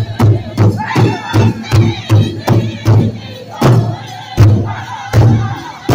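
Powwow drum group singing loudly in unison while beating a large rawhide hand drum with sticks, at first about two and a half beats a second. In the second half the beat breaks into a few hard, widely spaced strokes with the sticks swung high, the voices carrying on over them.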